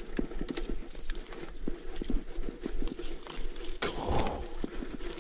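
Rapid, irregular knocks and rattles of a catch of crappie being handled in a fishing basket, with a brief louder rush of noise about four seconds in.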